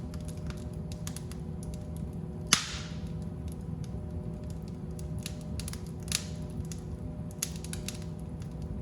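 Fireplace fire crackling, scattered small pops and snaps over a steady low rumble, with one sharp loud pop about two and a half seconds in and another near six seconds.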